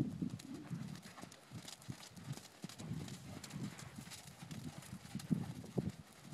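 Faint hoofbeats of a horse cantering on sand arena footing, a run of soft, dull thuds.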